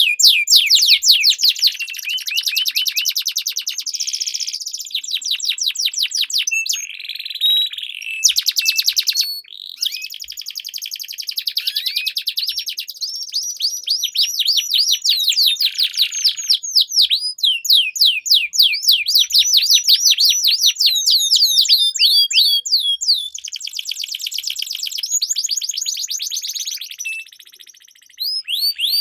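Domestic canaries singing long rolling trills: fast runs of rapidly repeated high chirps, one phrase after another, with a short break near the end.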